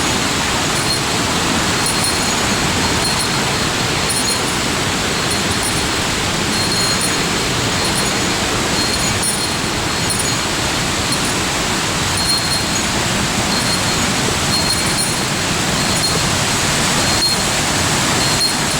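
Steady loud rush of water tumbling over rocks in a mountain gorge.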